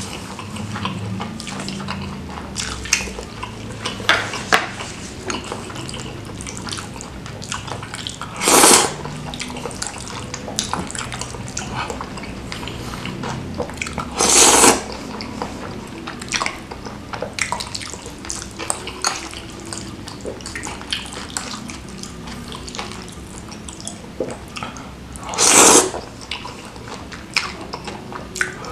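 Close-up eating sounds of spicy chicken noodles: wet chewing and lip-smacking clicks, broken by three loud slurps of noodles sucked into the mouth, about 9, 14 and 26 seconds in.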